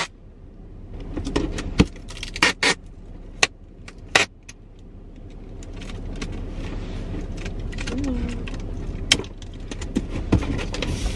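Packing tape pulled off a handheld tape-gun dispenser and torn, with several short, sharp rips and crackles in the first few seconds as a cardboard box is sealed. This is followed by a longer, steadier rustle of the tape and box being handled, and a few more clicks near the end.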